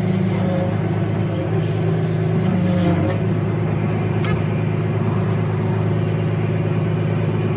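An engine running steadily at a constant low speed, with a continuous even hum.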